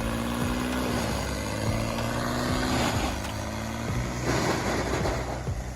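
Engine of a large 1990XP whole-tree wood chipper, rated over 200 horsepower, running steadily. Twice there is a rush of shredding noise as wood is fed through and chipped.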